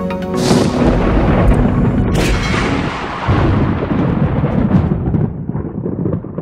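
Background music cutting off about half a second in, followed by a loud rumbling boom like thunder. A second sharp crack comes about two seconds in, and the rumble rolls on and slowly dies away.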